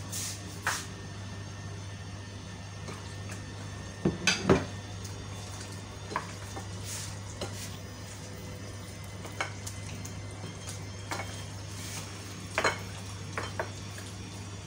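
Kitchen counter clatter: a cluster of knocks about four seconds in, then scattered light clicks and handling sounds as hands mix pork spareribs in a bowl, over a steady low hum.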